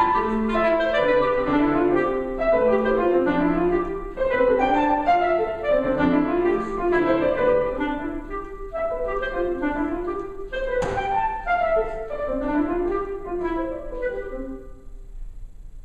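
Clarinet and piano playing contemporary classical music, with quick runs of notes from both instruments. The music thins out and fades away near the end.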